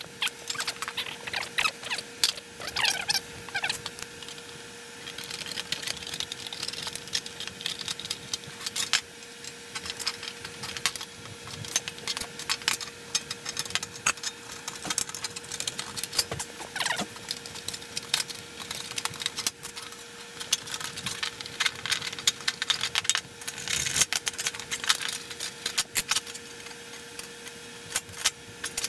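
Hand aviation snips cutting thin aluminium sheet: irregular spells of crisp snipping clicks and crunches, with the loose sheet rattling as it is handled and turned.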